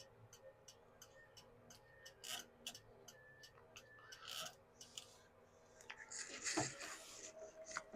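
Ford Club Wagon turn signal flasher ticking faintly and evenly, about three clicks a second, with the repaired turn signal switch switched on. Around six seconds in there is a brief rustle of handling.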